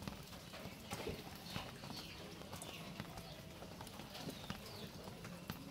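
Faint, irregular splashes, drips and taps of water as wet hands scoop and handle small tengra catfish fingerlings in a steel basin.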